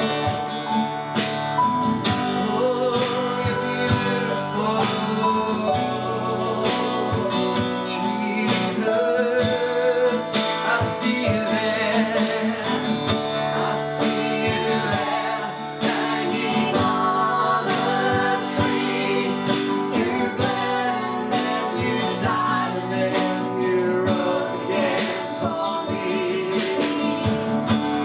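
Worship song: singing over strummed guitar and sustained chords, a steady full band sound.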